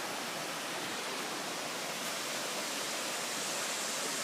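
Deep Creek, a mountain river, rushing steadily: an even hiss of flowing water.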